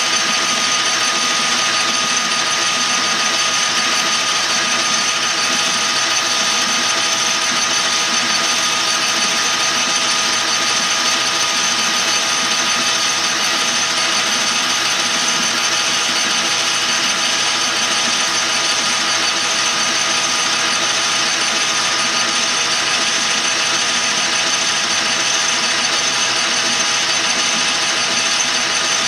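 Metal lathe running steadily while its cutting tool takes a continuous cut on a metal tube, throwing off stringy chips. A constant mechanical whir of the lathe's gearing with steady high tones.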